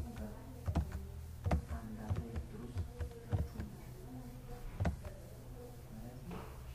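Scattered soft taps and clicks, about seven of them spread irregularly, over a steady low hum.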